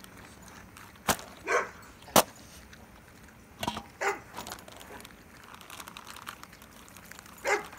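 Bullmastiffs barking: three short barks a few seconds apart, each falling in pitch, with a few sharp clicks between them.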